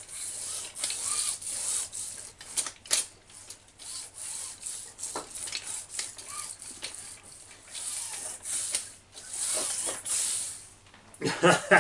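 Hands rubbing and pressing on the metal chassis of a large RC monster truck: an irregular scraping hiss with a few small clicks.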